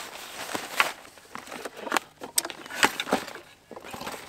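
Scattered clicks, knocks and rustling of camping gear being handled and unpacked from a loaded motorcycle's luggage.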